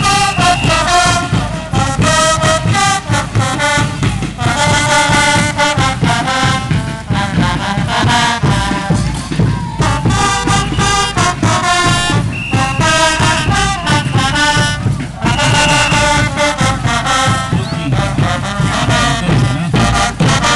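Brass band playing a caporales tune: brass melody in repeated phrases over a steady beat.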